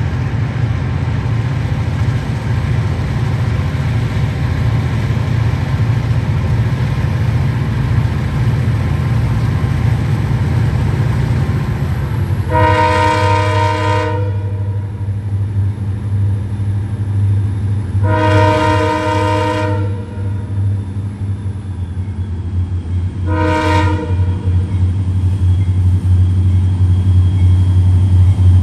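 EMD diesel locomotives approaching with a deep, steady engine rumble. The multi-chime air horn sounds two long blasts, a short one, and a fourth long one beginning at the very end: the long-long-short-long grade-crossing signal.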